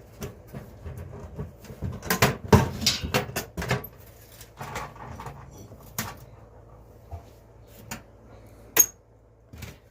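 A toolbox being opened and the hand tools inside handled, with a run of clattering knocks about two seconds in, then scattered single clicks and one sharp click near the end.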